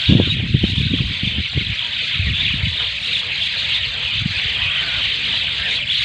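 A flock of mynas chattering together in one dense, continuous chorus, with low rumbling noise on the microphone.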